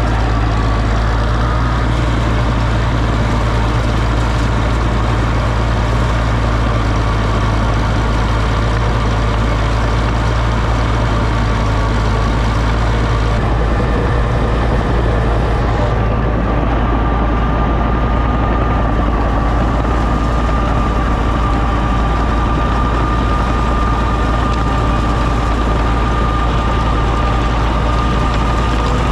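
Engine of an Oliver OC-6 crawler tractor running steadily and loudly, with a thin whine above the engine note that rises slightly about halfway through.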